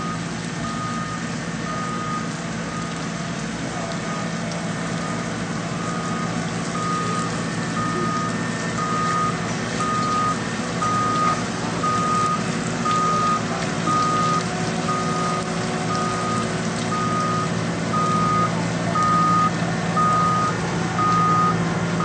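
A paving machine's backup alarm beeps about once a second, each beep at the same single pitch, over the steady running of a heavy machine's engine. The beeps drop out for a few seconds near the start.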